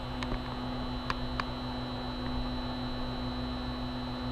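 Robo 3D R1+ 3D printer auto-homing: a steady electric hum from its motors and fans, with a few faint clicks.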